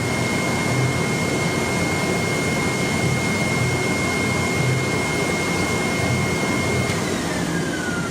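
CNC flatbed knife cutting plotter's machinery running with a steady blower-like rush and a thin high whine; near the end the whine starts to fall in pitch as it winds down.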